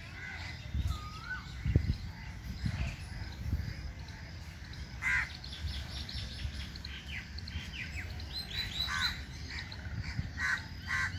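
Outdoor birdsong: crows cawing among many short chirping and whistled calls from other birds, busiest in the second half. A few low thumps and rumble in the first few seconds.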